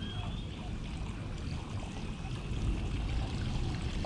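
Water lapping at a fishing kayak's hull with a steady low rumble of wind on the microphone, and a few faint high whistle-like calls.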